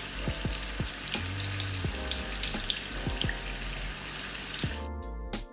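Zucchini pakoras deep-frying in hot oil on high flame: a steady sizzle full of small crackling pops, with background music underneath. The sizzle cuts off suddenly near the end, leaving only the music.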